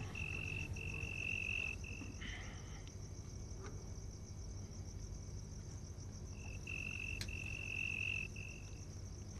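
Crickets chirping: a high, steady trill that comes in long spells, over the first two seconds and again from about six and a half to nine seconds in, above a fainter, higher trill that never stops.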